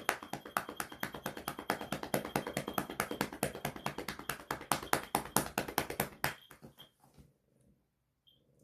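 Rapid run of light taps, about ten a second, that stops suddenly about six seconds in, followed by a few fainter taps.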